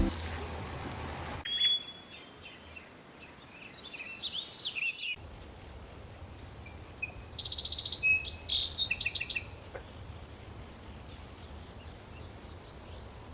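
Small birds chirping and trilling in short bursts over a quiet outdoor background. In the first second or so a steady hiss plays, then cuts off abruptly.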